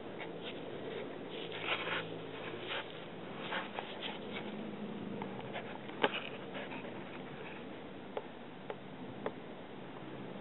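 Soft rustling with scattered small clicks and taps, with one sharper click about six seconds in.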